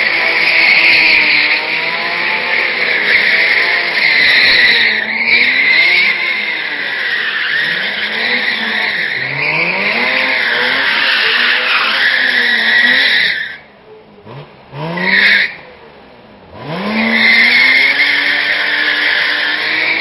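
BMW saloon drifting, its rear tyres squealing continuously over an engine revving up and down. Around 14 seconds in, the squeal and engine drop away, with one short chirp of tyre squeal; about three seconds later the revs climb again and the squealing resumes.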